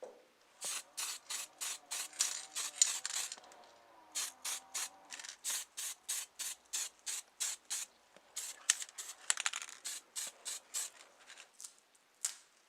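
Quick back-and-forth rubbing strokes on a model car by hand, about four a second, in two long runs with a brief pause near four seconds in. The strokes thin out near the end.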